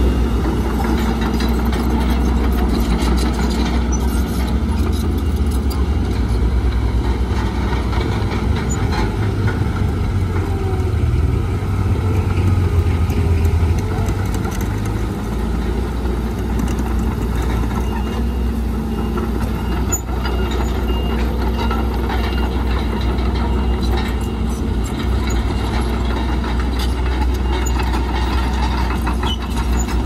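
Komatsu D31PX bulldozer's diesel engine running under load, a heavy low drone with scattered clanks and clicks from the machine at work. The drone is heavier through the first half and eases about halfway through.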